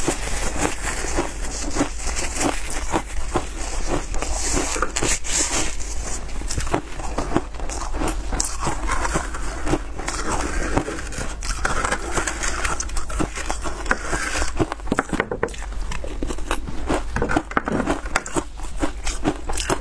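Frozen milk-powder shaved ice crackling and crunching as it is pressed apart by a gloved hand and scraped through with a spoon in a plastic tray: a dense, unbroken run of small crisp crackles.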